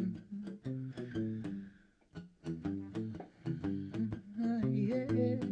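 Acoustic guitars playing: a run of picked notes in a steady rhythm, with a bending note near the end.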